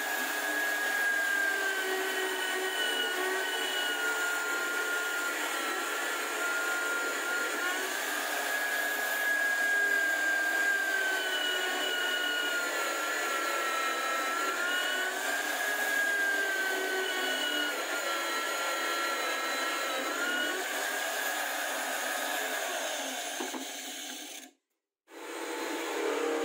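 Homemade drill press running and boring holes through plywood, a steady motor whine whose pitch sags and recovers as the bit cuts. It cuts off suddenly near the end, and a different machine starts running about half a second later.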